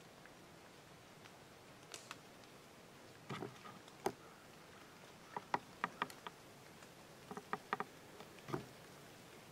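Hand-held adjustment of a video camera on its treestand mount: a scattered series of sharp clicks and small knocks, some single and some in quick clusters of three or four.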